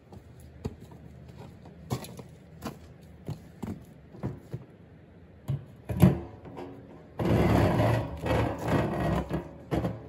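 Scattered knocks and taps of a hose and metal rod being handled at a fuel tank's opening, a louder knock about six seconds in, then a few seconds of rubbing and scraping as a garden hose is pulled up out of the tank.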